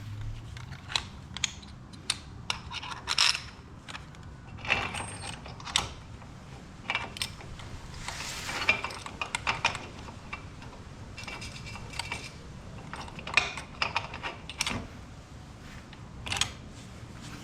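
Metal hardware being handled: irregular sharp clicks, clinks and rattles, some ringing briefly, of the stainless steel retractable ratchet strap and its mounting parts being fitted.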